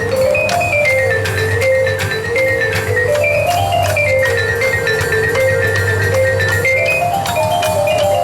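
Marching band music led by mallet percussion (marimba and vibraphone) playing quick repeated notes in lines that rise and fall, over a steady held low note.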